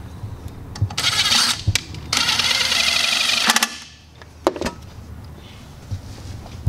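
Handling noise from the engine-bay wiring and plastic electrical connectors at the throttle body being worked by hand: a few sharp clicks and two spells of rustling and rubbing, one about a second long and one about a second and a half.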